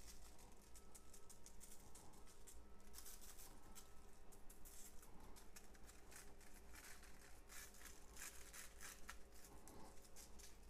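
Faint, quick rattling and patter of a spice shaker being shaken, dry BBQ rub sprinkling out in many soft little ticks.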